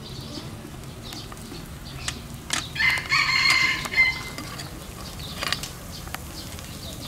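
A rooster crowing once, about three seconds in, for roughly a second and a half. Scattered light metallic clinks come from a spoon and the lids on an aluminium multi-cup pancake pan.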